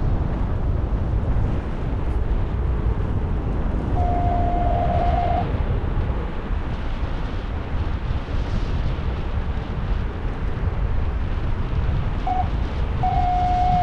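Strong wind buffeting the microphone in a steady low rush. A steady mid-pitched tone sounds for about a second and a half about four seconds in, and again briefly near the end.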